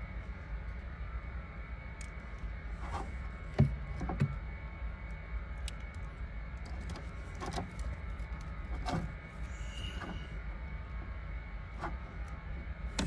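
Hand crimping tool squeezing blue heat-shrink butt-splice connectors onto wiring-harness wires: scattered sharp clicks and knocks, the two loudest close together a few seconds in, over a steady low hum.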